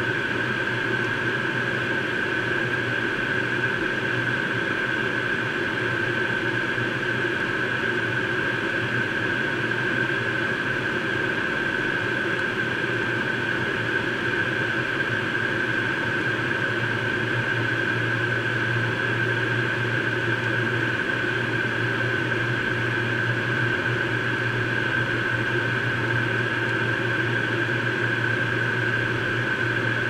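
Steady cockpit noise of a Learjet 35A in high-altitude cruise: the even rush of its Garrett TFE731 turbofans and the airflow, with a steady high-pitched whine. A low hum gets a little louder for several seconds past the middle.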